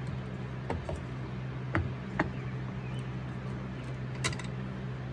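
A few light clicks and knocks of metal being handled at a bench vise fitted with wooden jaws, about five in all, over a steady low hum.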